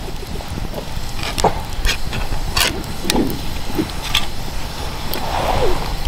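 Wood fire crackling, with irregular sharp cracks and pops over a steady low rush; faint voices in the background.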